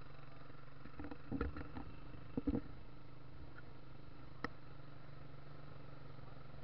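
Habal-habal motorcycle engine running steadily as it rides along a dirt track, with a few sharp knocks about a second and a half and two and a half seconds in and a single click a little later.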